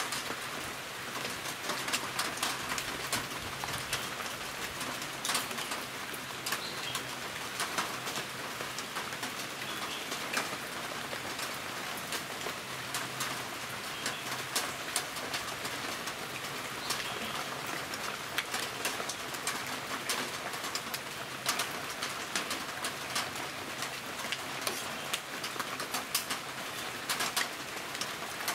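Steel pot of onions, green chillies and curry leaves at a rolling boil: a steady crackling bubble with frequent sharp clicks and pops, as boiled cassava pieces are added.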